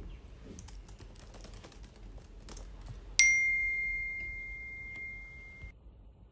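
Typing on a laptop keyboard, a run of light key clicks, then about three seconds in a single bright chime rings out and fades for a couple of seconds before cutting off: a smartphone's incoming-message notification.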